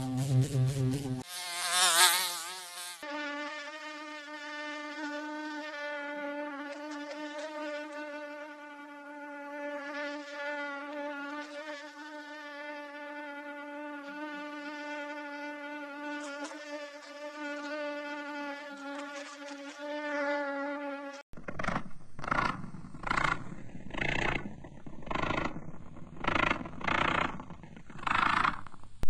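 A mosquito's whine: a steady buzz with a slightly wavering pitch that holds for most of the clip. It opens with a second of a bee's lower buzz. Near the end it gives way to a rhythmic rasping pulse, about one and a half a second.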